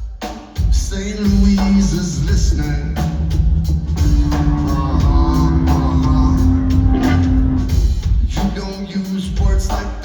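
Rock band playing live through a concert hall PA, with heavy bass, drums and singing. Long held notes sound over the middle part.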